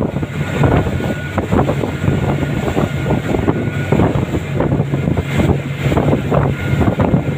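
Twin 300 hp outboard motors running at high speed, a steady drone, with wind buffeting the microphone and water rushing past the hull.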